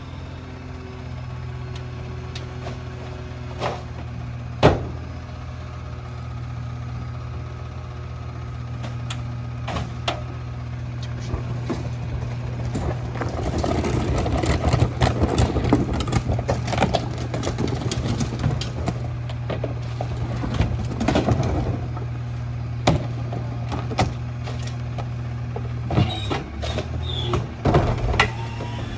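Rear-loader garbage truck engine idling steadily, with plastic trash carts rattling as they are wheeled over the pavement through the middle, and a few knocks near the end as a cart is lifted against the hopper.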